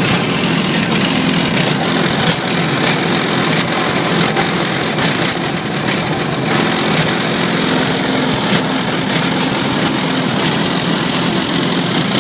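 Car stereo subwoofers in the trunk playing loud bass, heard as a steady, dense rumble with held low notes.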